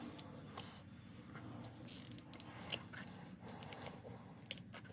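Flat-blade screwdriver prying the plastic back cover off a fog light housing sealed with silicone: faint scattered clicks and scrapes of plastic, with a couple of sharper clicks, the loudest near the end.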